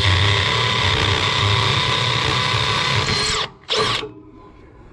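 Cordless drill/driver running hard for about three and a half seconds as it drives into a metal mounting bracket on the wall frame, with a steady motor whine, then a second short burst just under a second long.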